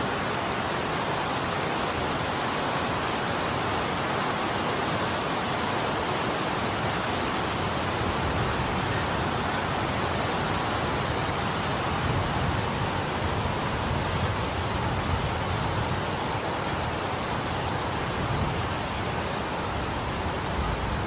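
Steady rushing noise of a winter snowstorm's wind, with low gusty rumbles on the microphone from about halfway through.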